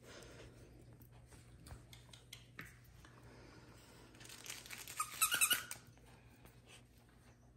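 Basset hound puppy scuffling on a hardwood floor and mouthing her toys, with a burst of crinkling and crunching about four to six seconds in, over a faint steady low hum.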